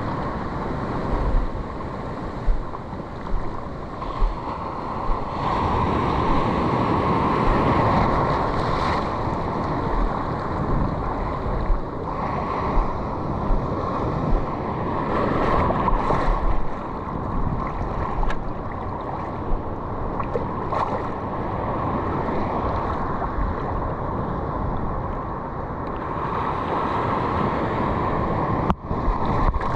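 Ocean surf washing and churning close around the wader's legs, with wind buffeting the microphone. There are brief louder bumps throughout.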